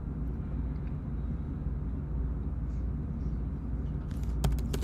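Steady low background hum, with a quick run of computer keyboard key clicks near the end.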